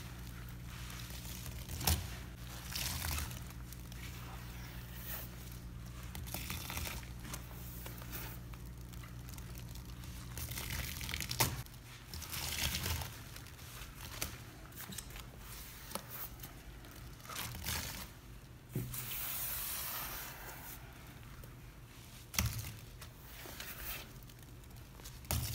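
Wet sponges full of soapy cleaning paste squeezed by rubber-gloved hands: repeated crackly, squishy squeezes of foam, with a few sharp clicks.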